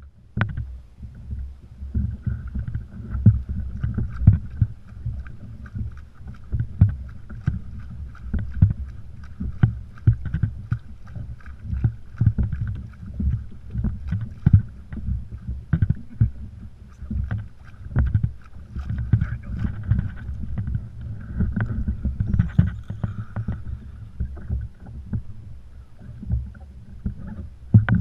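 Water slapping and knocking against a plastic kayak hull, with irregular thumps and low wind rumble on the camera microphone. A fainter, steadier whir comes from a conventional reel being cranked against a hooked blackfin tuna.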